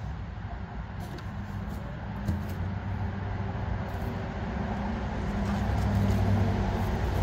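A motor vehicle's engine running as a low, steady hum that grows louder over several seconds, with a few light knocks on top.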